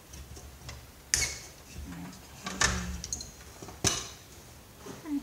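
Sharp clicks and snaps of hand tools and plastic and metal parts as a CRT computer monitor is taken apart: three loud snaps about a second and a half apart, with lighter ticks between.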